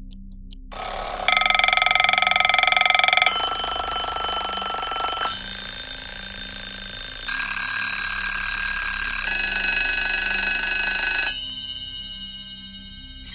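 Clock ticking, about four ticks a second, stops under a second in. Then a series of different mechanical alarm clock bells ring one after another, about six in all, each a continuous rapid ringing lasting about two seconds.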